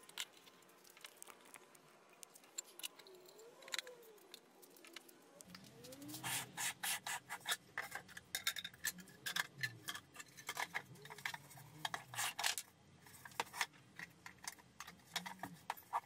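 Hollow 3D-printed PLA enclosure sections being fitted and handled by hand: faint plastic clicks, knocks and rubbing, busiest from about six to thirteen seconds in.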